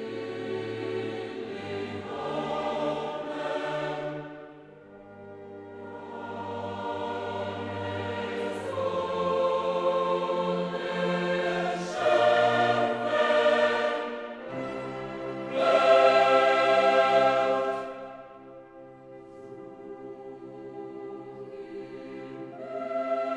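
Background music: a choir singing long held chords over orchestral accompaniment, swelling and fading in phrases.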